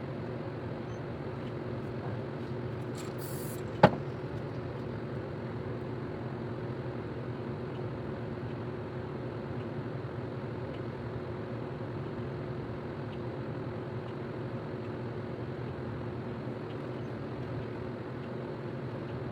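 Steady mechanical hum, with a single sharp click about four seconds in.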